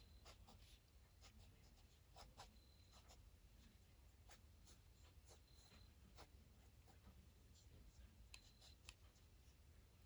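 Faint scratching and light ticking of a fine-tip ink pen drawing on paper, in short irregular strokes.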